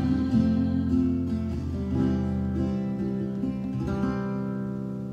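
Acoustic guitar playing the closing chords of a song. A new chord is struck about every two seconds, and the last one is left to ring and fade.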